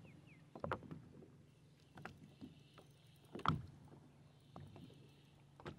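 A few scattered knocks and light rattles of gear being handled in a small fishing boat, about four in all, over a faint steady low hum.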